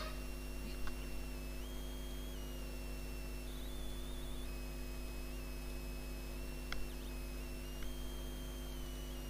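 Steady electrical mains hum with a faint high electronic whine that shifts up and down in pitch in steps. A few faint mouse clicks can be heard.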